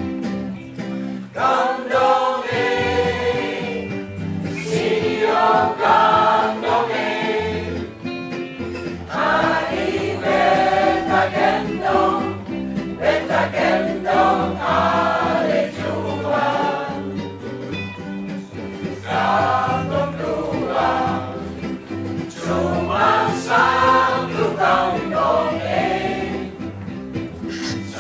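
Choir singing a song in phrases, over steady sustained low notes.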